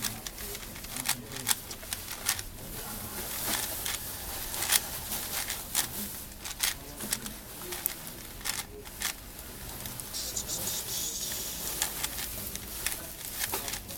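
A plastic 4x4 Rubik's cube being turned by hand: quick, irregular clicks and clacks of the layers snapping round, several a second.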